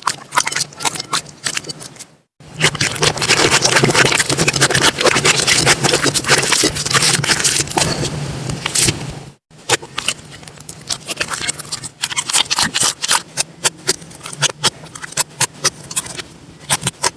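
Slime being squeezed and pressed by hand, giving dense runs of small crackling clicks and pops. The sound comes in three stretches, cut by brief silences about two seconds in and again about nine seconds in; the middle stretch is the loudest and thickest.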